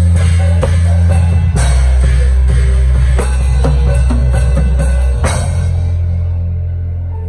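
Drum kit with cymbals played over music with long held deep bass notes that change about a second and a half in and again about five seconds in. The drum and cymbal strokes stop about five seconds in, leaving the held chord slowly getting quieter.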